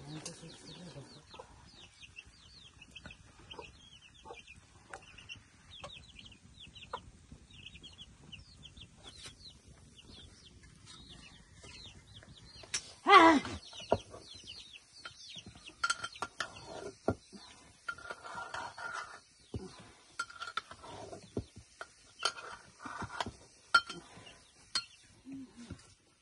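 Chickens clucking and cheeping in quick, high, repeated chirps, with one louder call about halfway through. Light metal clinks of a ladle against a cooking pot come and go in the second half.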